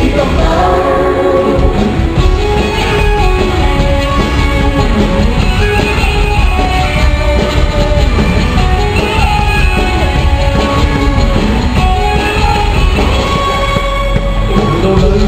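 Live Cantopop music: a full band playing loudly and steadily, with male singing over it.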